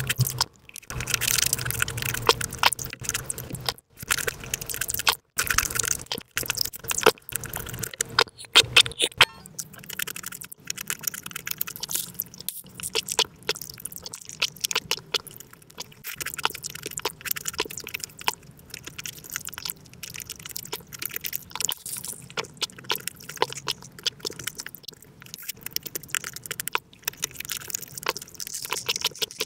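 Close-miked eating and drinking sounds played back about five times too fast: a dense run of quick smacks, chews and slurping clicks, with fork taps on a plate. About nine seconds in it changes to sipping boba tea through a wide straw.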